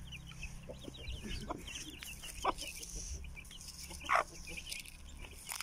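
A hen clucking among a brood of young chicks that peep rapidly and continuously, with one louder call about four seconds in.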